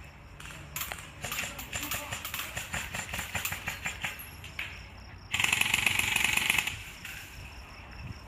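Airsoft guns firing: a few seconds of rapid shots, then about five seconds in a louder, closer full-auto burst that lasts over a second.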